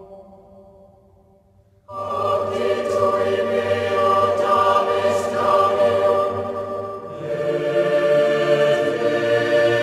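Recorded choral music: a held chord dies away, then about two seconds in a choir comes in loudly in full harmony, singing long sustained notes, moving to a new chord about seven seconds in.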